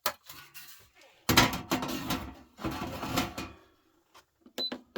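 Sheet-metal parts of a fluorescent light fixture clanking and clattering as they are handled during a teardown for scrap, with a short, high metallic ping near the end.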